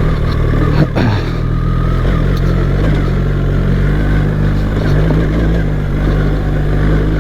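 BMW R 1300 GS's boxer-twin engine running steadily under way, with a brief sharp knock about a second in.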